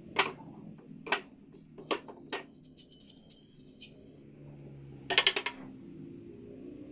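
Sharp knocks with a metallic clink, one at a time at first, then a quick rattling cluster of several strikes about five seconds in.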